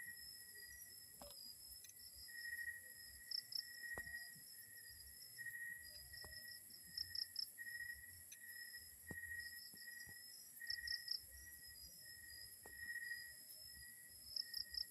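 Faint insect chirping, a steady pulsing trill with higher chirps over it, broken by a few light clicks and taps.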